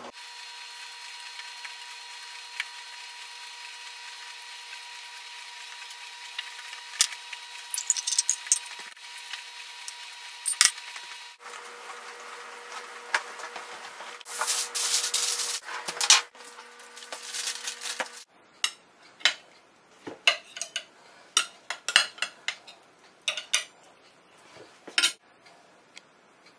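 Kitchen handling sounds: soft rustles and knocks over a steady electrical hum for the first part. In the last third, metal serving utensils clink and scrape against a glass baking dish and a china plate as cabbage rolls are served.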